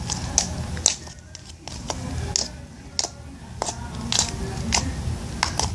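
Slime being squished and pressed by hand, making irregular sharp clicking pops.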